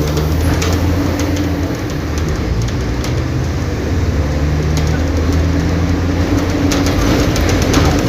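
Mercedes-Benz OF-1722M bus's 218 hp four-cylinder turbodiesel running, a steady low engine drone with scattered light clicks and rattles over it.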